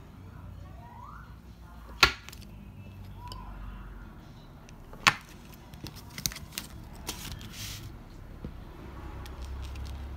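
Enamel pins on paper backing cards being handled on a wooden table: two sharp clicks about three seconds apart, then a run of lighter ticks and a brief papery rustle.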